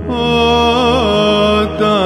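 Byzantine chant: a chanter draws out a melismatic, ornamented phrase over a steady held drone (the ison). The melody breaks off briefly near the end.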